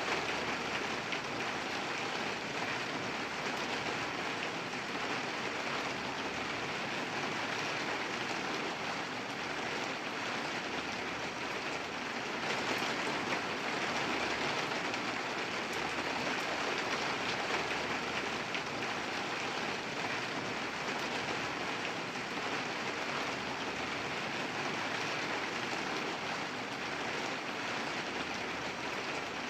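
Steady, moderate rain falling, an even hiss of drops with no thunder.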